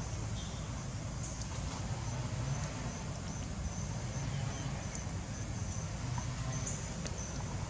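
Insects chirping in short, high-pitched bursts that repeat every second or so, over a steady low rumble.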